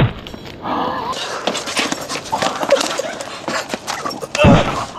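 People yelling and grunting in a scuffle, in short animal-like vocal bursts, with a louder outburst just before the end.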